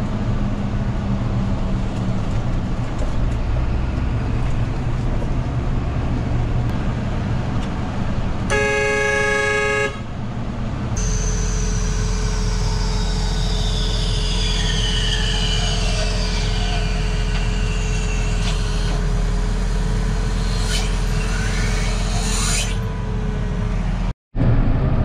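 Tractor engine running, heard from inside the cab while driving. A vehicle horn sounds once for about a second and a half partway through. After a cut, a steady engine drone with a thin, high, constant whine.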